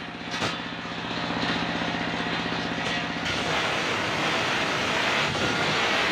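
Engine-driven circular sawmill blade: for about the first three seconds the blade spins free and the stationary engine's steady firing pulse is heard. Then the blade cuts into a coconut-wood (glugu) log with a loud, steady cutting noise.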